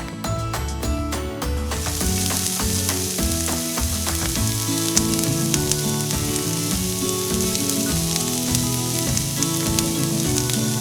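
Food frying in hot oil in a miniature pan: a steady sizzle with small crackles that starts about two seconds in.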